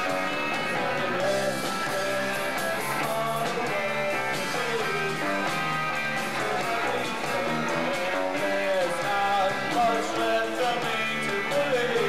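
Live rock band playing: electric guitars over drums, thin-sounding with almost no deep bass.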